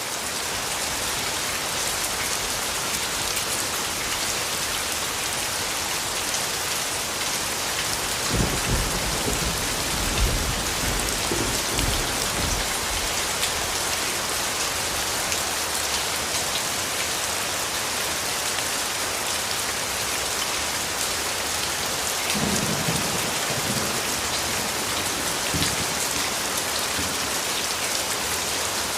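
Steady rain falling, an even hiss and patter. Low thunder rumbles twice, for several seconds from about eight seconds in and again from about twenty-two seconds in.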